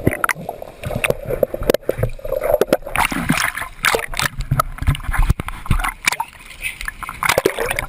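Sea water splashing and sloshing around people swimming in life jackets, with many sharp knocks, and brief, indistinct voices.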